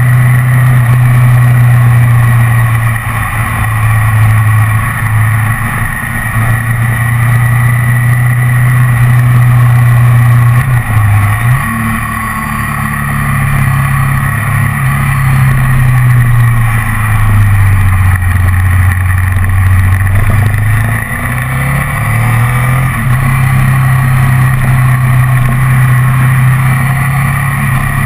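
Ducati ST4S's 90-degree V-twin engine running under way, heard from a camera mounted on the bike. The engine note stays loud and steady, dips about 11 seconds in, runs lower for several seconds, and rises again as the rider changes speed.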